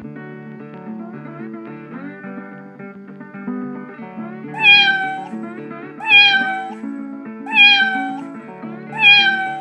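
Cat meowing four times, about a second and a half apart, starting about halfway through, over background music with plucked-guitar notes.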